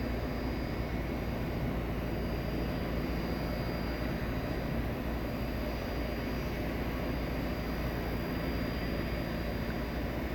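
Bombardier Challenger 350 business jet's turbofan engines: a steady jet rumble with a thin high whine over it, not rising or falling.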